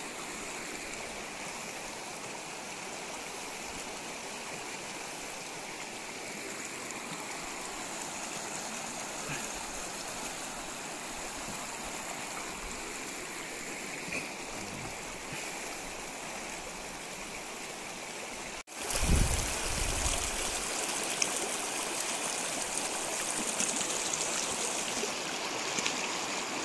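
Shallow stream rushing and splashing over rocks and stones in a steady wash of water sound. About two-thirds of the way through, the sound cuts out for an instant and comes back louder, with a brief low rumble as it returns.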